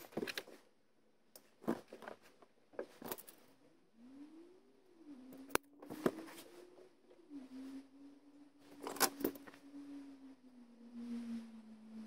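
Small clicks and rustles of wires and plastic spade connectors being handled while wiring a dash rocker switch, with one sharp click about five and a half seconds in. A faint low hum that wavers in pitch joins about four seconds in.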